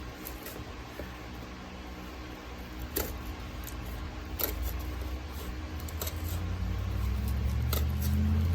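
Scattered light clicks and taps of a shipping box and its packing being handled and opened. A low rumble builds up over the second half.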